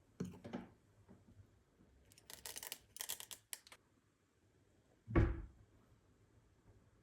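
Kitchen handling sounds while making a mug cake: a few light knocks, a second and a half of quick scraping strokes, then one heavy thump about five seconds in.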